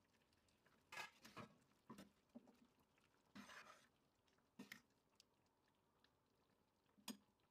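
A spoon stirring soft cooked damson plums in a stainless steel pot: wet squelching with a few short knocks about a second apart.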